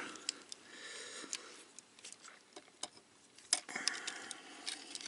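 Plastic parts of a Transformers Siege Springer action figure clicking as they are handled and pushed into their tabs and slots during transformation: scattered small clicks, the sharpest about three and a half seconds in.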